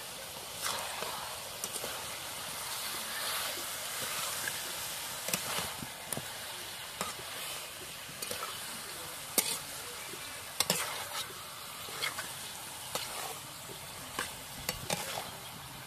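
Food sizzling in hot oil in a cooking pan while a utensil stirs it, with sharp knocks and scrapes against the pan about once a second.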